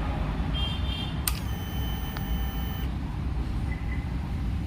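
Yezdi Scrambler motorcycle's ignition being switched on: a short high beeping, then a click about a second in and a steady high whine lasting about a second and a half, over a steady low rumble.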